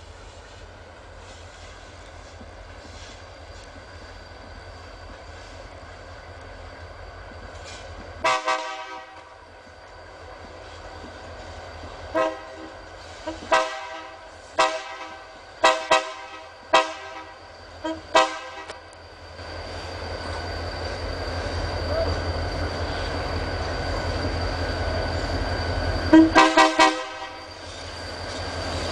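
Diesel freight locomotive's horn sounding repeatedly: one blast about eight seconds in, a string of short toots a few seconds later, and a quick cluster near the end. The locomotive's engine rumble grows steadily louder as it approaches.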